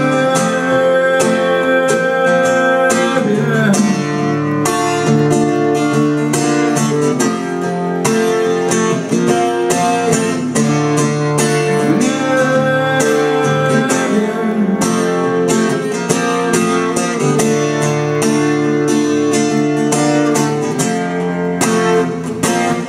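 Solo cutaway acoustic guitar playing an instrumental passage, a steady run of picked and strummed chords that drops away at the very end.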